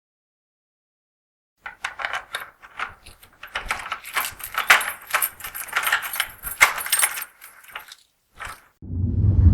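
Jangling, clinking clatter of many small objects, dense and irregular for about seven seconds after a short silence. A low rumble comes in near the end.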